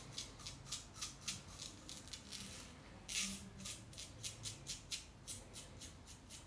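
Faint, quick wet-shaving strokes against the face, about three a second, with one longer stroke about three seconds in.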